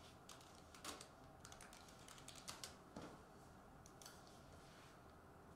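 Near silence broken by a few faint, scattered clicks and taps from hands handling a shrink-wrapped trading card box.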